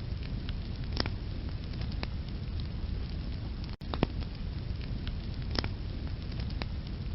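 Wood fire burning in a fireplace: a steady low rush of flames with sharp crackles and pops from the logs every second or so. The sound drops out for an instant a little under four seconds in, followed by a loud pop.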